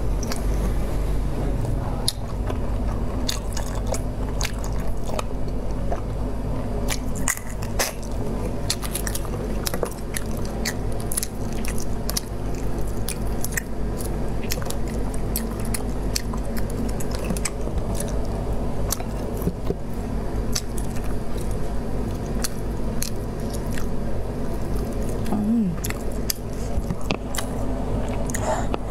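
Close-miked chewing of saucy braised shellfish, with many wet mouth clicks and smacks, over a steady low hum.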